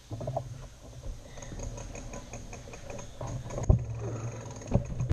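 Bicycle being wheeled and bumped through a doorway: a low steady rumble with a run of light ticks, and several sharp knocks in the last second and a half.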